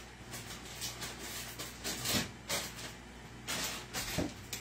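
Scattered short rustles and light knocks of kitchen items being handled, over a low steady hum.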